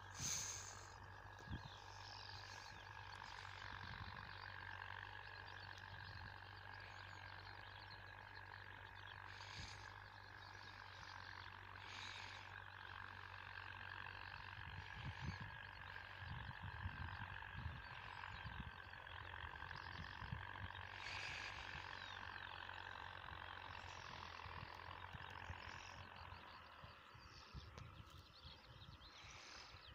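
Faint, steady running of a distant Steyr 8073 tractor's diesel engine under load as it pulls a plough, with low wind rumble on the microphone. A brief sharp knock comes right at the start.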